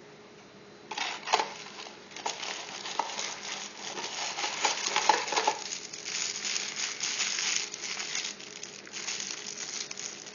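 Packaging crinkling and rustling as it is handled and unwrapped, with scattered sharp clicks, starting about a second in.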